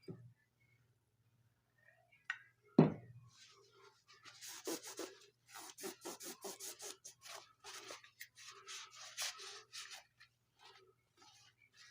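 A single sharp knock of metal being handled, then a run of quick back-and-forth rubbing strokes on a steel pipe wrench, typical of oil being worked over it to keep rust off.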